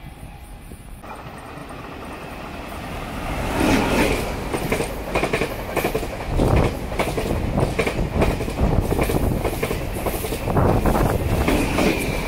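Taiwan Railways push-pull Tze-Chiang electric express train passing close by at speed. It grows louder about four seconds in, then its wheels clatter rhythmically over the rail joints, with a brief high ring from the wheels.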